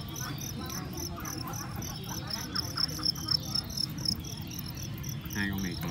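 Crickets chirping in a steady, rapid train of short high-pitched pulses, several a second.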